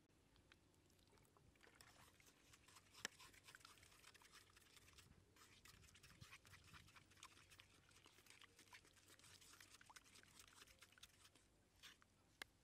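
Wooden stick crushing and stirring wet chili sauce in a stone mortar: faint, rapid clicks and scrapes with a short pause about five seconds in.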